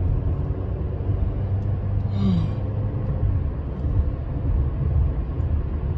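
Steady low road and engine rumble inside a moving car's cabin, with a brief breathy sound about two seconds in.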